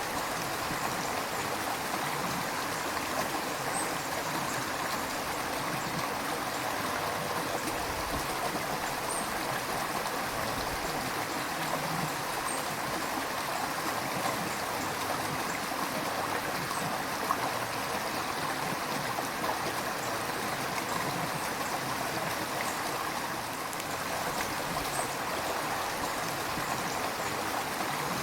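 River water flowing steadily over rocks, an even rushing and burbling with no pauses.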